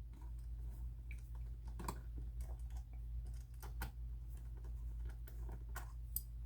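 Faint, scattered small clicks and ticks of a tiny Torx driver and steel screws being worked loose from a folding knife's pocket clip.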